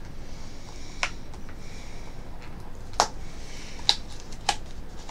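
A small cardboard product box being handled and opened by hand: four sharp clicks, the loudest about three and four seconds in, with faint rustling in between.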